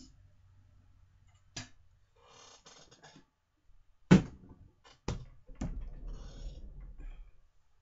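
Handling noises at a desk: a few sharp knocks with rustling between them, the loudest knock about four seconds in.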